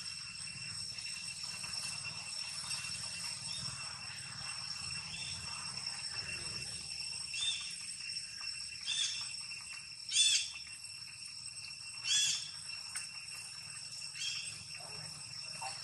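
Steady high-pitched insect drone, with about five short, high calls from an animal breaking over it; the loudest calls come about ten and twelve seconds in.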